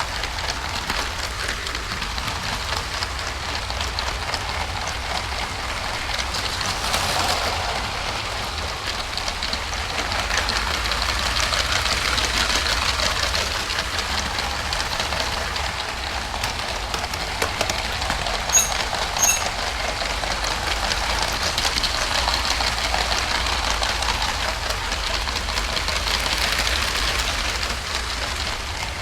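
LEGO train running on plastic track: a steady rattling clatter of wheels and drive with a low hum underneath, swelling and easing a little, and two sharp clicks close together about two-thirds of the way through.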